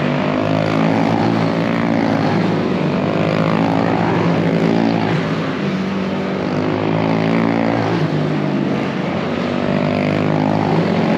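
Several quarter midget race cars lapping a small oval, their small single-cylinder engines buzzing together, the overlapping engine notes rising and falling as the cars accelerate down the straights and ease off into the turns.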